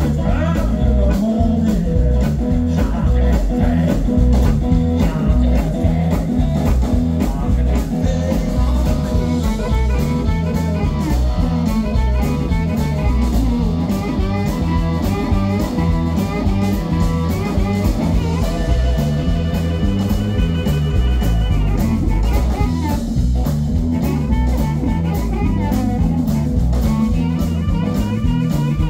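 Live blues rock band playing an instrumental: amplified blues harmonica leading over electric guitar, electric bass and a drum kit.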